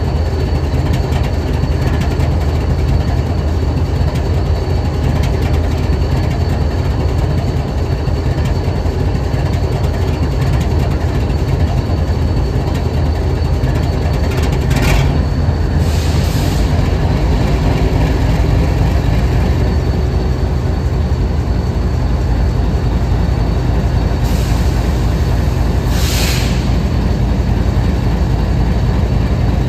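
BNSF diesel-electric locomotive idling steadily, with a deep, even engine note. Two brief hisses come through, one about halfway and one near the end.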